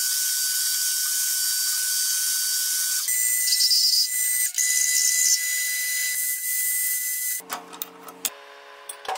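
Metal lathe cutting a spinning steel disc: a steady high-pitched hiss with a thin whine. About three seconds in it changes as a drill in the tailstock bores into the disc. Near the end the cutting stops and the sound drops away.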